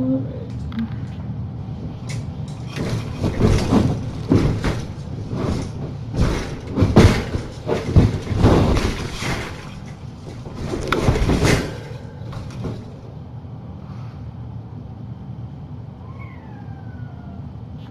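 Several seconds of loud rustling and scraping handling noise over a steady low hum, then a cat meowing near the end.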